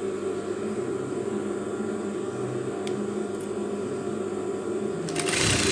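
Sewing machine motor humming steadily while the needle is stopped, then the machine starts stitching again near the end.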